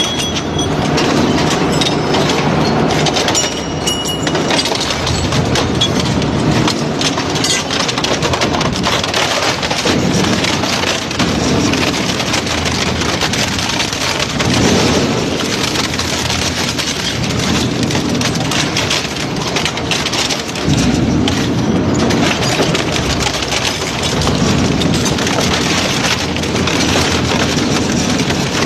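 Industrial shredder tearing up a motorcycle: continuous crunching and cracking of metal and plastic, with a deeper grinding that swells and fades every two to three seconds.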